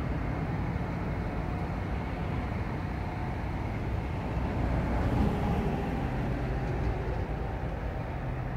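Several farm tractors' diesel engines running together, a steady low engine sound that swells a little about halfway through.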